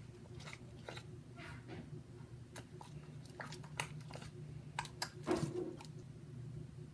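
Sticky, still-activating glue slime being stirred and worked, giving scattered small wet clicks and pops over a steady low hum.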